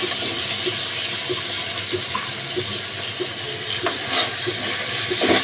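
Onion-tomato masala sizzling steadily as it fries in a metal kadai, with fresh coriander and green chilli stirred in. A steel spoon scrapes and taps lightly against the pan now and then.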